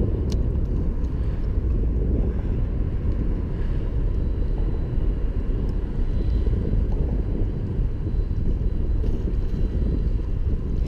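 Wind buffeting the microphone: a steady low rumble that flickers, with one sharp click near the start.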